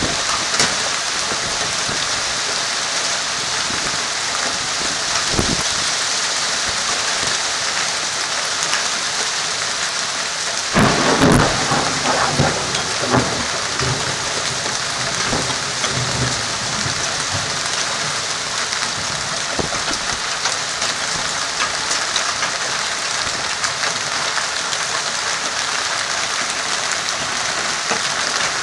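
Heavy rain and hail pelting down steadily in a thunderstorm, with many sharp little impacts in the hiss. About eleven seconds in, a loud clap of thunder rumbles for a couple of seconds.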